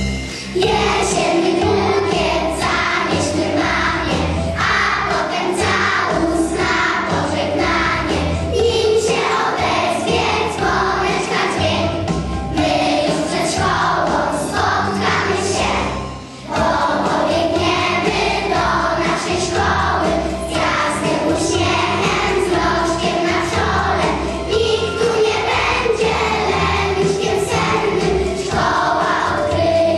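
A group of young children singing a song together in unison over instrumental accompaniment, with a short break between phrases about halfway through.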